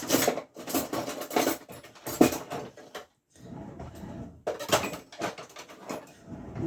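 A large cardboard shipping package being handled and opened: irregular scraping, rustling and knocks, with a short pause about three seconds in.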